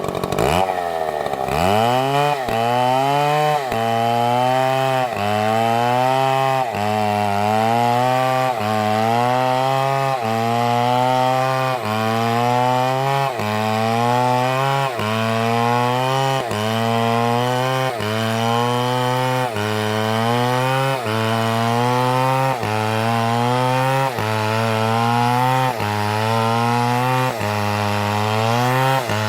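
Chainsaw engine running hard, its pitch dipping and climbing back in a steady rhythm about every one and a half seconds, as the chain is pushed into wood and eases off.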